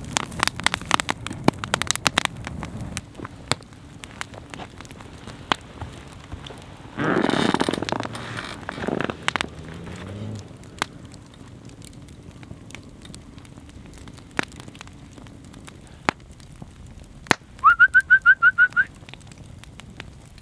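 Wood campfire crackling and popping with sharp snaps, busiest in the first few seconds. About seven seconds in there is a brief noisy rush of about a second. Near the end comes a quick run of about eight short, high whistled notes.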